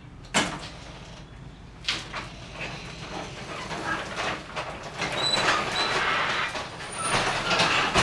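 Overhead garage door, released from its opener, pulled down by hand: two sharp clicks, then the door rumbling down its tracks, getting louder as it nears the floor.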